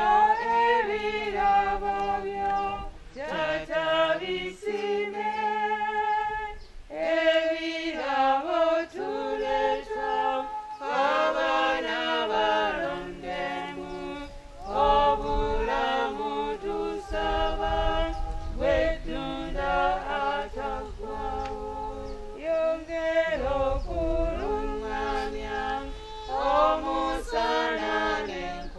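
A choir singing a hymn in long held phrases, with short breaks between lines.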